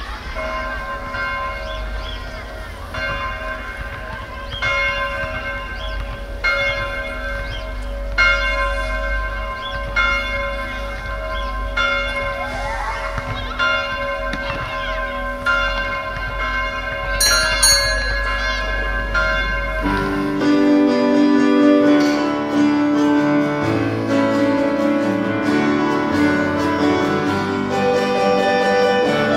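A church bell tolling, struck about once every two seconds, each stroke ringing on into the next, over a low rumble. About two-thirds of the way in, the bell cuts off and instrumental music takes over.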